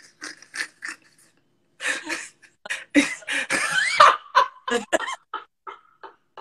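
A man laughing hard in a run of short breathy bursts. The bursts come thick and loud in the middle, with a high squeal about four seconds in, and trail off toward the end.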